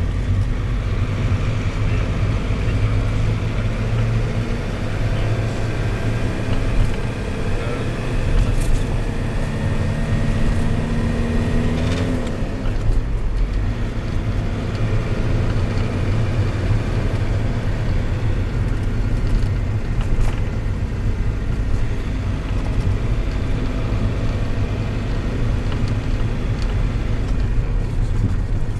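Minibus taxi engine and road noise heard from inside the cabin while driving. Steady running, with the engine note rising and then dropping sharply about twelve seconds in.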